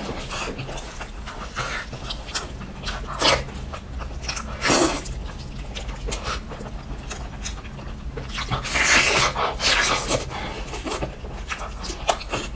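Close-miked chewing and lip-smacking of a person eating braised pork knuckle, a string of short mouth noises with a few louder ones, the longest about nine seconds in.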